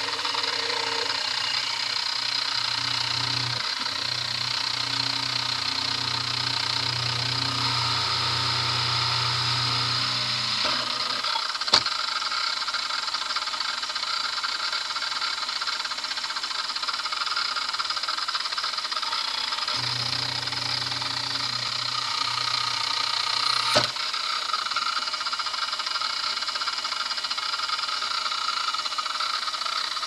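Drill press motor running steadily while a small bit drills holes in a brass hex nut, with a low hum that rises and falls as the bit takes load. A sharp click sounds twice.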